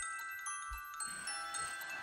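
Quiet background music: bell-like mallet-percussion notes, glockenspiel-like, struck one after another and left ringing.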